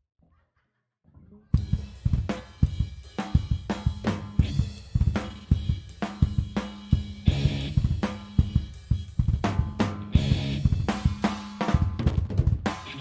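Live rock band starting a punk rock song: after a brief silence the drum kit comes in about a second and a half in, with snare, bass drum and cymbals hit hard and fast over a steady low bass note.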